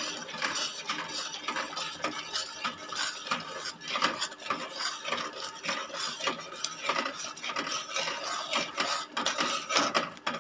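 Flat metal spatula scraping and clinking against a steel kadai as a thin, milky almond halwa mixture is stirred, in quick irregular strokes.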